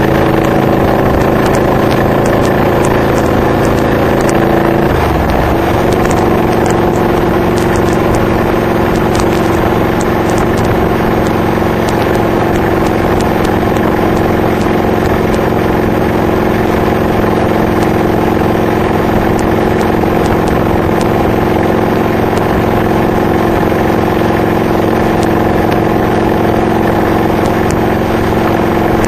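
2007 Honda VTX 1300R's V-twin running under way through Hard Krome K2 exhaust pipes fitted with Michael's Resonators baffles, a steady exhaust note. About five seconds in the pitch drops and settles at a new steady level.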